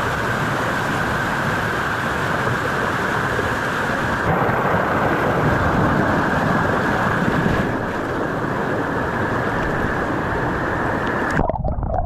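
Mountain creek water rushing and churning over rocks right at the microphone, a steady loud rush. About eleven seconds in the microphone goes under the water and the rush turns suddenly muffled and dull.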